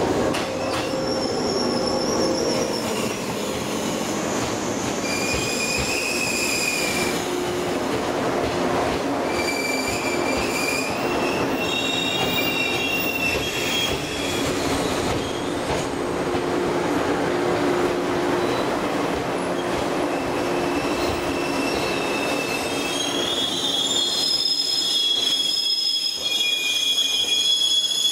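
JR East 189-series electric multiple unit rolling slowly past the platform as it pulls into the station, running on steadily. High-pitched wheel squeals come and go over the noise, growing stronger near the end as the train slows.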